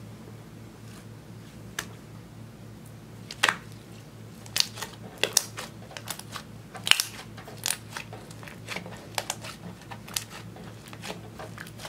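White slime (clear slime with eyeshadow mixed in) being gathered, squeezed and rolled by hand: irregular sharp clicks and pops of trapped air bursting, most in the middle, over a low steady hum.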